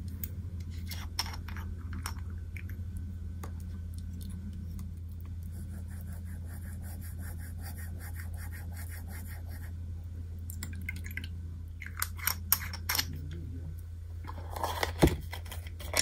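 Paintbrush dabbing and stroking fountain pen ink onto sketchbook paper: a run of quick, soft, scratchy strokes in the middle, over a steady low hum. A few light clicks and knocks come near the end.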